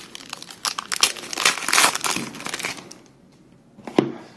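Foil trading-card pack wrapper crinkling and tearing as a pack is handled and ripped open. Near the end there is a short lull, then a single sharp tap.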